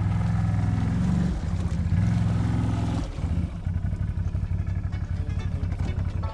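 ATV engine running under load. Its revs climb about a second in and drop back sharply about three seconds in, then it runs steadily.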